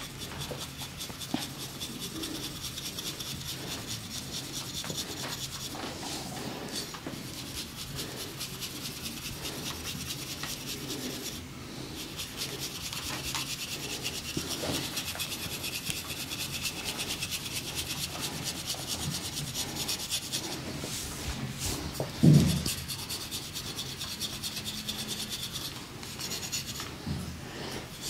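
Hands rubbing rapidly and continuously over skin during a barber's massage, a dense, fast rasping rub. About three quarters of the way through there is one short low thump, the loudest sound.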